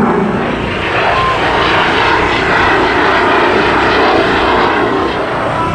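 Snowbirds' CT-114 Tutor jets flying past, a loud steady rush of jet engine noise.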